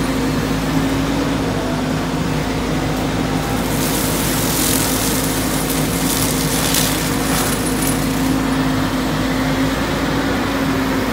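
Volvo EWR150E wheeled excavator running with its hydraulic forestry mulcher head spinning, giving a steady hum. Through the middle stretch come bursts of shredding hiss as the mulcher chews into brush and scrub.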